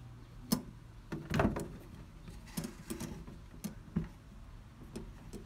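Metal letter-slot flap in a door being pushed open and batted at, clicking and knocking a dozen or so times. The sharpest click comes about half a second in, and a cluster of knocks follows about a second and a half in.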